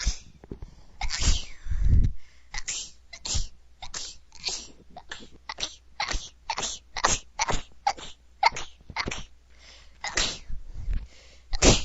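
A woman sneezing over and over in a long run of small, quick sneezes, about two a second.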